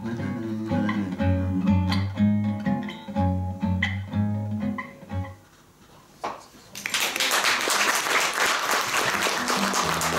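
Nylon-string classical guitar playing the closing bars of a song, dying away about five and a half seconds in. After a short pause, audience applause starts about seven seconds in and carries on.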